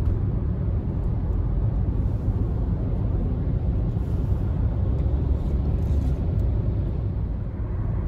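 A car driving at highway speed, heard from inside the cabin: a steady low rumble of road and engine noise.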